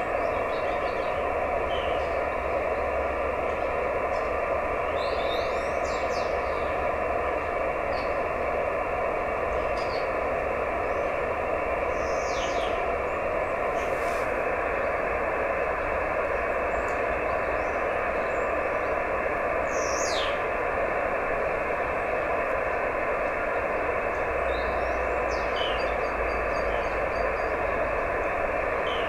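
Steady hiss of receiver noise from an Icom IC-910H transceiver's speaker on 432 MHz SSB, cut off sharply at the top like a narrow radio passband, with a couple of faint steady tones in it, one of which stops about halfway through. A few faint short chirps sound above the hiss.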